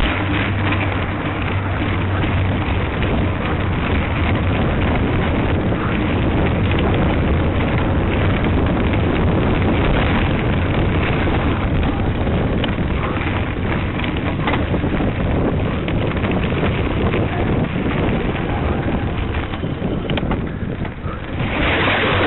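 Steady wind rushing on the microphone of a camera carried on a cyclocross bike at speed, mixed with the rumble of the bike over a gravel path. There is a brief louder rush of noise near the end.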